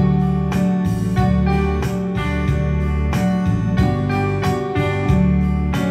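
Background instrumental music with a guitar and a steady beat.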